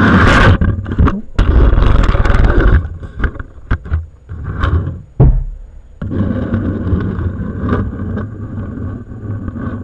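Close rumbling and scraping from a miniature camera strapped to an OO gauge model train coach as it is pushed along the track by hand. Loud rough rushes of noise in the first three seconds, scattered clicks and knocks, then a steadier rumble from about six seconds in.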